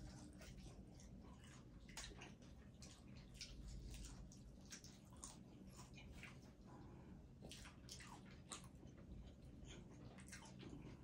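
Faint chewing and wet mouth sounds of people eating saucy food, with many small irregular smacks and clicks.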